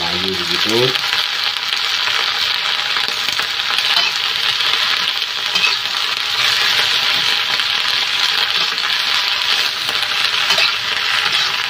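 Sawi manis (choy sum) greens sizzling as they are stir-fried in a hot wok, with a steady hiss. A metal spatula scrapes and turns them against the pan, with a few light taps.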